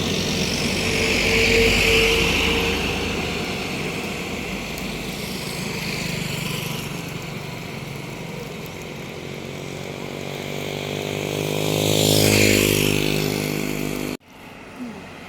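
Road traffic passing close by, with a brief steady tone about two seconds in. A vehicle engine then climbs in pitch to its loudest about twelve seconds in, and the sound cuts off abruptly shortly after.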